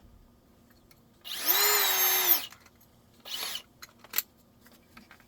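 Cordless drill/driver motor spinning up for about a second, holding a steady whine, then winding down. A fainter short burst follows, then a single sharp click.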